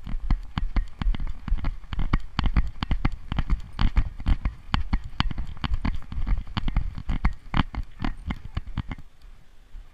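Dog-harness-mounted GoPro jolted by a running Border Collie's strides: rapid, uneven thumps and clicks of the camera mount and harness, stopping about nine seconds in as the dog halts.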